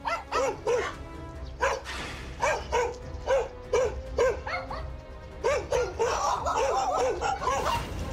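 A dog barking repeatedly at a man in quick runs of short barks. It is defensive, territorial barking, the dog trying to drive the stranger away from behind him.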